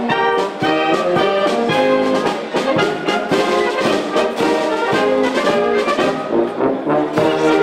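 Brass ensemble playing a tune, several horns sounding together in a continuous run of changing notes.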